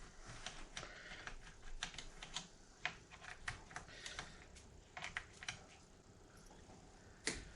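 Faint, irregular small clicks and taps of a micro screwdriver and tiny screws being handled on a laptop's plastic bottom case, with one sharper click near the end.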